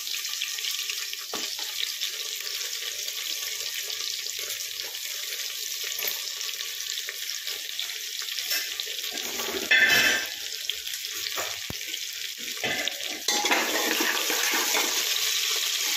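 Chopped onions sizzling in hot oil in an aluminium pressure cooker, a steady hiss. There is a brief louder burst about ten seconds in. From about thirteen seconds a spatula stirs the onions, and the sound gets louder and uneven.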